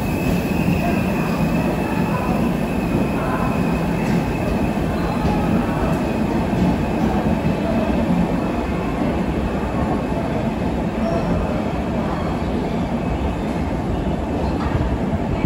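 Passenger train coaches rolling past along a platform: a steady rumble of wheels on rail, with a faint high wheel squeal through the first few seconds.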